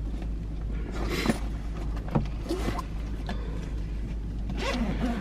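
Rustling and zipper noises from a soft-sided fabric suitcase being felt through and unzipped, over a steady low hum in a sleeper-train cabin.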